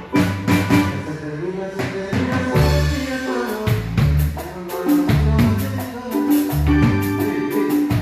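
A live cumbia band playing a tune on stage during a sound check. Drum kit, keyboards and deep repeating bass notes are heard over a steady rhythm.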